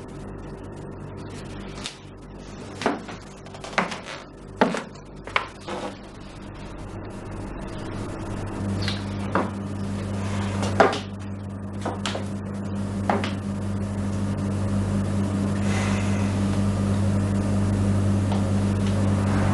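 A low, steady hum that slowly grows louder, with a scattered handful of sharp knocks and clicks in the first two-thirds.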